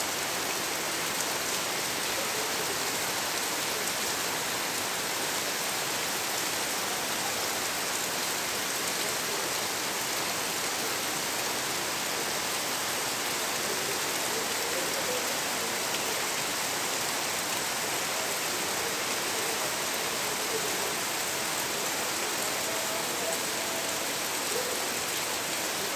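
Steady rain falling on leaves and dense foliage, an even hiss that doesn't let up.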